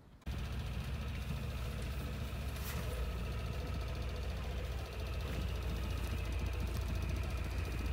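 Motorboat engine running steadily with a low, even throb, cutting in suddenly just after the start.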